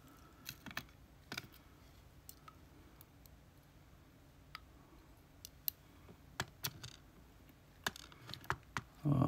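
Scattered light clicks and taps, irregular and a dozen or so in all, from small metal lock pins and tools being handled as a gutted pin-tumbler lock's pins are picked up and examined. A louder rustle comes near the end.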